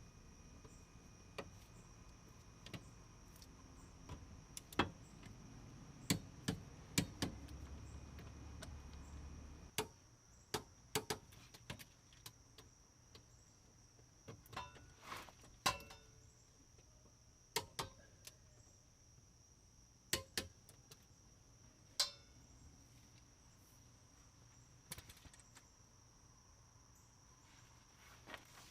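Torque wrench clicking as the BMW E30's axle bolts are tightened to spec, a series of short, sharp metallic clicks at irregular intervals with quiet gaps between them.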